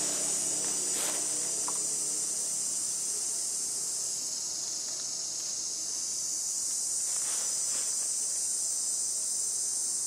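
Steady, high-pitched chorus of insects chirring without a break, with a couple of faint brief rustles, about a second in and near the seven-second mark.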